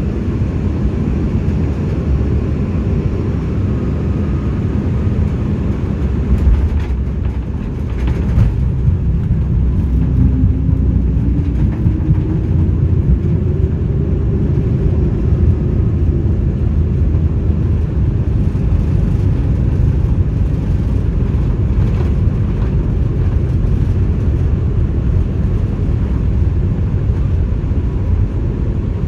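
Cabin noise of an Embraer E190-E2 airliner rolling along the runway after landing: a loud, steady low rumble of engines and wheels. A faint hum rises in pitch partway through.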